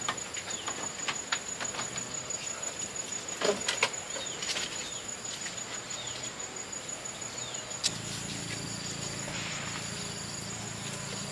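Insects chirring steadily and high-pitched, with scattered light knocks and taps on a wooden porch floor in the first half. After a sharp click about eight seconds in, a low steady rumble joins.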